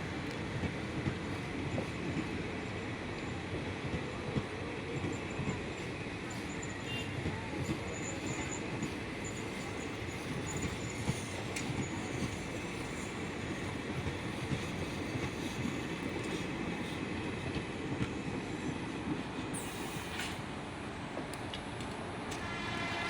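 Passenger train rolling slowly into the station, its wheels clattering over rail joints with a steady rumble and a faint high wheel squeal in the middle.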